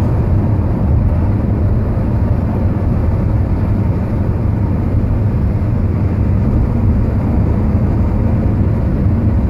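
Steady road and engine noise heard from inside a moving car's cabin at cruising speed: an even low rumble with no breaks.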